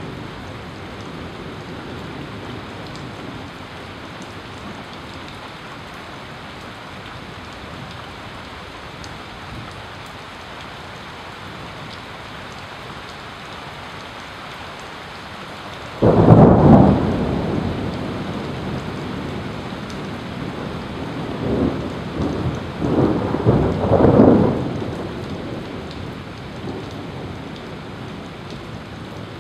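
Steady rain on surfaces, then about sixteen seconds in a sudden loud thunderclap that rumbles on, swelling again in further peals for several seconds before dying back to the rain.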